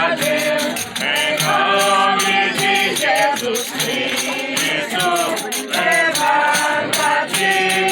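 Several voices singing together over a shaker that keeps an even beat of about four strokes a second.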